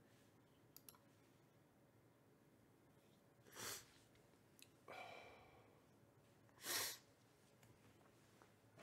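Near silence broken by three short breathy sounds from a person: a sharp breath a little over a third of the way in, a longer sigh around five seconds, and another sharp breath shortly after.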